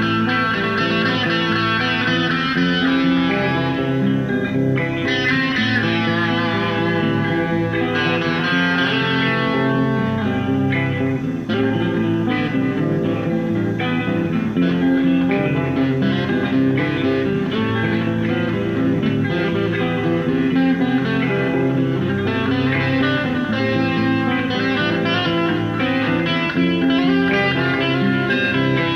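Electric guitar played without a break, a steady stream of ringing notes and chords.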